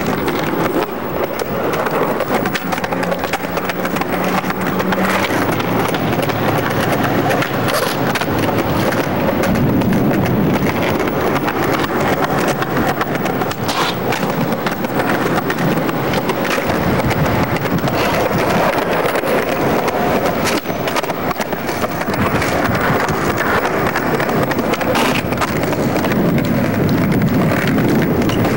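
Skateboard wheels rolling on pavement with a steady rumble, broken by sharp clacks of the board's tail popping and landing, the loudest about fourteen seconds in.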